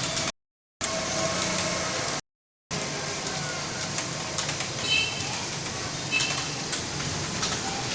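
Computer keyboard being typed on during a timed typing test, the key clicks faint under a steady background noise, with a couple of brief high chirps around the middle. The sound cuts out to complete silence twice in the first three seconds.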